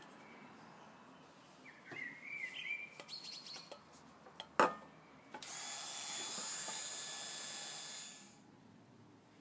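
A bird chirps a few times, then a sharp click, and a Proxxon rotary tool fitted with a cutting disc runs with a steady high-pitched whine for about three seconds before it stops.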